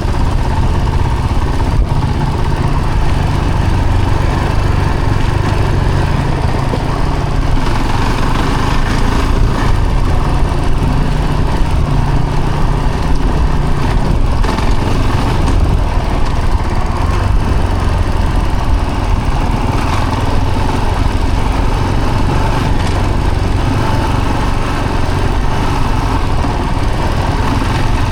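Steady vehicle engine and road noise while driving, even in level with no sudden changes.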